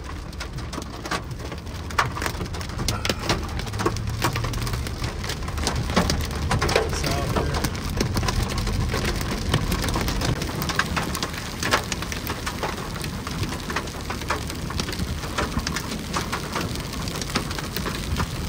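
Small hail mixed with rain pelting a car's roof and windshield: a dense, uneven patter of sharp ticks over a steady low rumble.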